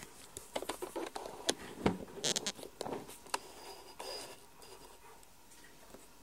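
Small pieces of dry dog kibble dropped into a plastic dog bowl and stirred: a run of light clicks and rattles over the first three seconds or so, then quieter, with a brief thin high squeak about four seconds in.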